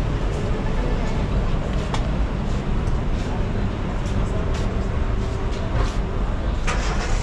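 Steady low rumble of a city street at night, with faint voices and a few short knocks, the strongest near the end.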